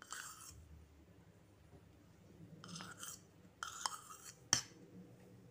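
A spoonful of ghee melting in a hot nonstick pan: faint, on-and-off sizzling with a few sharp crackles, the sharpest about four and a half seconds in.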